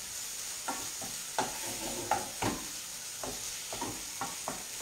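Diced pumpkin and sausage sizzling as they brown in a frying pan, stirred with a utensil that knocks and scrapes against the pan about eight times at irregular intervals.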